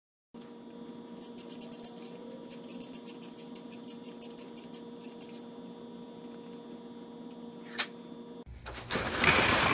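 A thread tap being turned into a screw hole on an outboard's fuel pump mounting: a quick run of sharp clicks over a steady hum for the first few seconds. Near the end comes one sharp click, then a short loud rushing noise.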